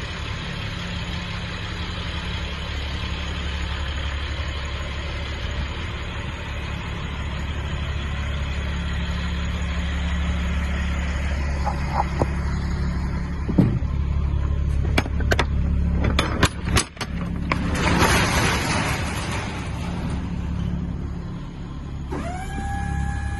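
Ford F650 box truck's diesel engine idling steadily. About halfway through come several sharp metal clanks and knocks, then a brief rushing hiss. Near the end a steady electric motor whine starts, the lift gate's pump motor running.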